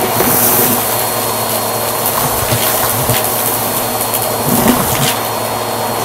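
Bissell vacuum running with its bare hose end over cluttered carpet: a steady suction rush with a faint high whine, broken by a few sharp clicks and rattles as small debris is pulled up the hose.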